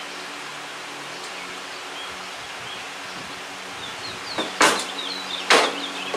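Two sharp knocks about a second apart near the end, from parts being handled and fitted, over a steady background hiss with faint bird chirps.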